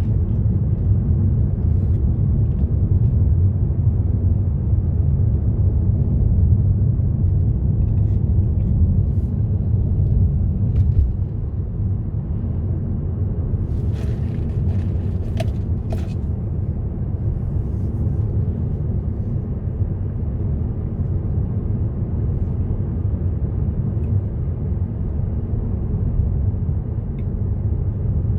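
Car driving along a road: a steady low rumble of engine and tyres that eases slightly about eleven seconds in, with a few short clicks near the middle.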